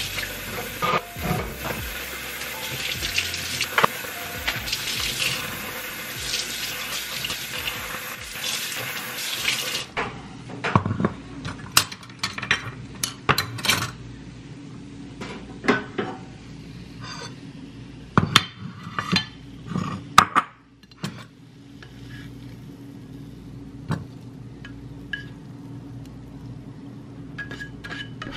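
Kitchen tap running into a stainless steel sink while dishes are scrubbed, with a few clinks; the water stops about a third of the way in. After that, scattered clinks and knocks of knives, tongs and a plate set on a wooden cutting board, and a spatula scraping food out of a metal frying pan, over a faint steady hum.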